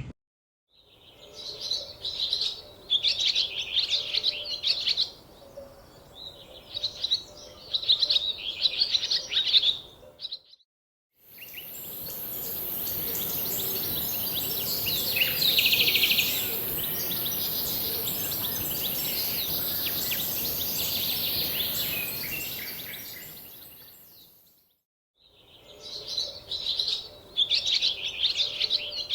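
Wild songbird singing in short repeated chirping phrases, heard through several separate clips with brief gaps between them. In the middle clip a steady high-pitched hiss runs under further bird calls.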